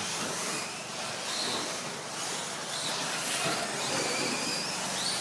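Radio-control 4wd short course trucks racing, their electric motors whining up and down over a steady hiss.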